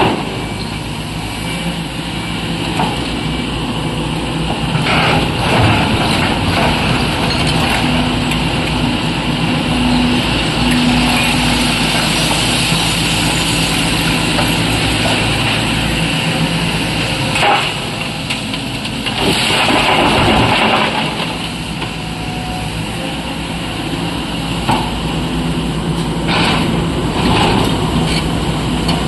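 SANY SY225 crawler excavator's diesel engine running steadily under hydraulic load as the bucket digs into broken rock, with rocks scraping and knocking against the bucket now and then.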